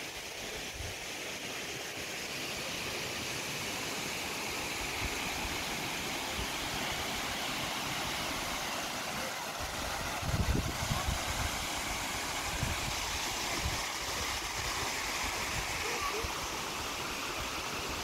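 Steady rush of the Dzhurin waterfall, a 16-metre drop on the Dzhurin river, with wind buffeting the microphone from about halfway through.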